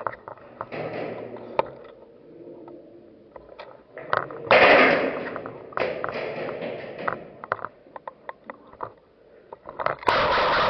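Airsoft guns firing in a firefight: many scattered sharp shots, with two longer, louder rushes of noise, one about four and a half seconds in and one near the end.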